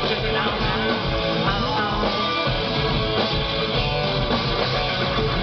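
Live rock band playing, electric guitar to the fore over bass and drums.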